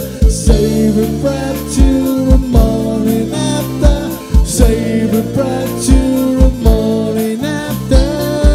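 Live band playing a song: a male lead vocal over electric guitar, bass guitar, keyboard and a drum kit keeping a steady beat.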